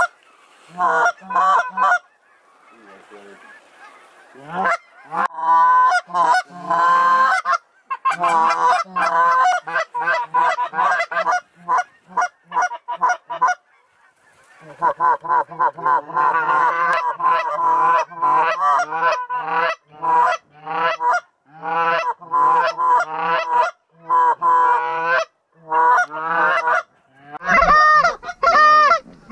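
Goose calling: rapid runs of loud, short honks and clucks, broken by brief pauses about two seconds in and again around fourteen seconds in.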